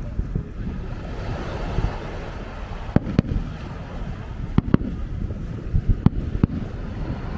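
Fireworks shells bursting: scattered sharp bangs, one about three seconds in and a quick cluster of several over the following few seconds, over a steady low rumble.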